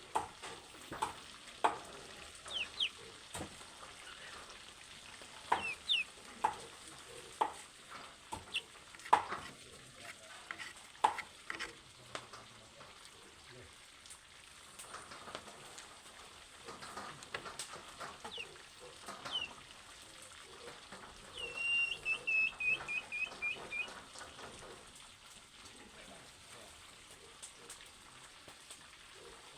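Food frying in a pan: a faint sizzle with scattered sharp pops and crackles. Birds chirp now and then, and a quick run of falling chirps comes about two-thirds of the way through.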